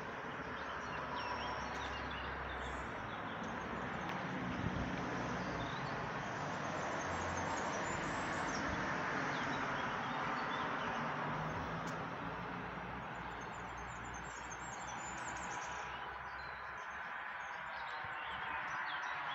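Outdoor ambience: birds chirping now and then over a steady background of noise that swells slightly midway.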